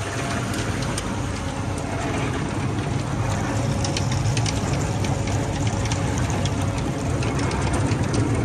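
Forage harvester chopping alfalfa haylage, its engine running steadily with a dense low rumble and scattered light ticks.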